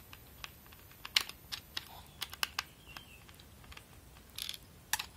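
Irregular light clicks and taps of a screwdriver turning screws out of the plastic bottom case of a Toshiba NB305 netbook, with a brief scrape near the end.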